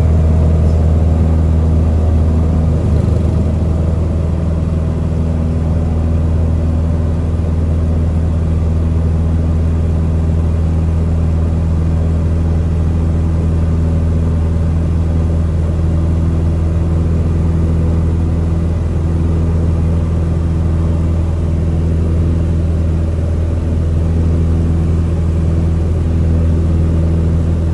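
Single-engine light aircraft's piston engine running at steady full power through the takeoff and climb, heard inside the cockpit as a loud, even drone with a deep hum.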